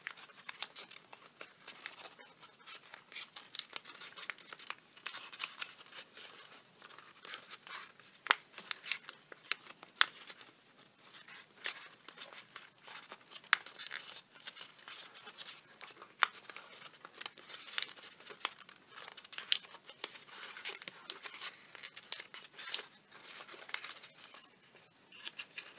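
Origami paper being creased and worked by hand, with irregular crinkling and many sharp crackles as the flaps of a large sink fold are pressed into shape on each side.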